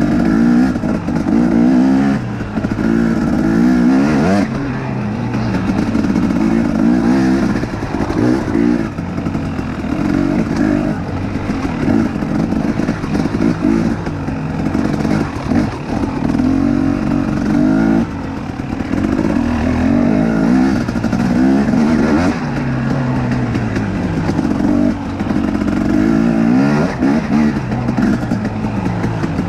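KTM 250XC two-stroke dirt bike engine being ridden hard, revving up and dropping back again and again every second or two as the throttle is worked.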